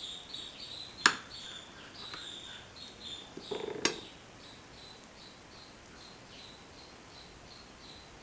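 Knife blade knocking against a plate twice while slicing soft dhokla, about a second in and again near four seconds. A small bird chirps repeatedly in the background.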